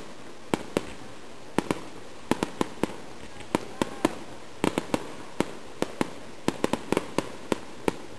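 Fireworks bursting: about two dozen sharp bangs and cracks at irregular intervals, coming thick and fast in clusters, stopping shortly before the end.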